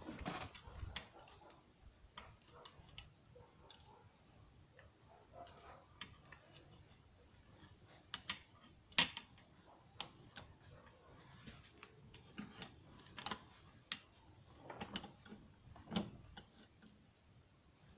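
Scattered light metallic clicks and taps of hand tools and steering-rod parts being handled, a few sharper knocks among them.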